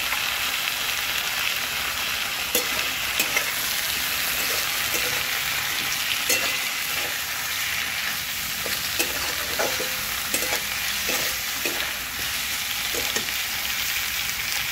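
Mixed vegetables sizzling in hot mustard oil in a kadai as a metal spatula stirs freshly added mustard paste through them, with scattered scrapes and knocks of the spatula against the pan.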